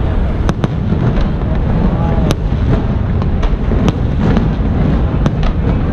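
Aerial fireworks shells bursting: an irregular string of sharp bangs, about nine in six seconds, over steady crowd noise.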